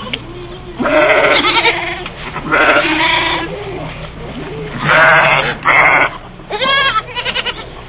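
Bleating of small hoofed livestock: a series of loud, harsh bleats, the last ones near the end quavering.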